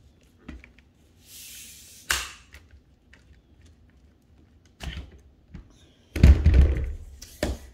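Scattered knocks and thumps with a short hiss about a second in. The loudest is a heavy low thump about six seconds in, followed by a sharp click near the end.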